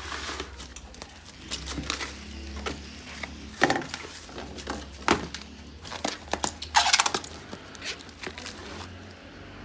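Plastic cling film being pulled from the roll and stretched over a plastic bowl, crinkling and crackling irregularly with a few sharp snaps.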